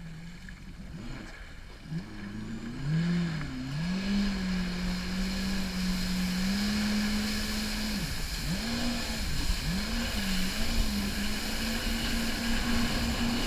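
Jet ski engine pulling away, its pitch rising about two seconds in and then holding steady. It dips and rises several times with the throttle before settling on a slightly higher steady note, over a rushing hiss that grows louder.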